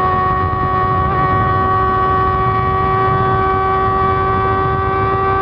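Honda CBR600RR inline-four engine held at high, nearly constant revs: a steady high-pitched wail with a slight dip in pitch about a second in, over a low rumble of wind and road.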